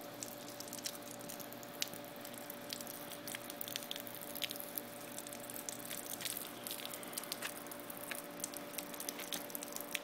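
Water dripping and trickling from a water balloon holed by an airsoft BB: many small, irregular drips, with one louder click about two seconds in. A steady faint hum runs underneath.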